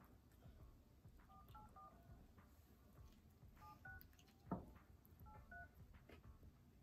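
Faint phone keypad touch tones as a number is dialed on a smartphone: short beeps in three quick runs, about a second and a half in, near the middle, and about five seconds in. A single dull thump about four and a half seconds in is the loudest sound.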